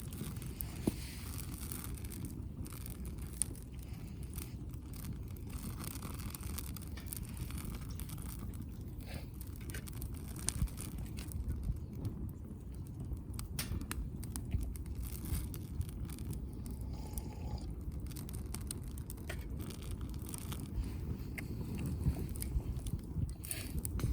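Wood fire crackling in a Uniflame firewood grill, with scattered sharp pops over a steady low rumble.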